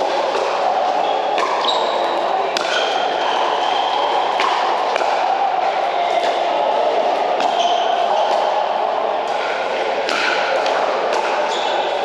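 Pickleball paddles popping against the plastic ball, with ball bounces, in many sharp hits through the rally. They echo in a large indoor hall over a steady din of other games and distant voices.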